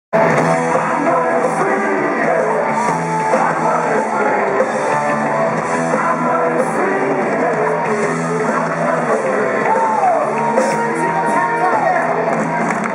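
Live heavy metal band playing loudly with electric guitars, bass and drums, and a singer holding long, wavering notes near the end.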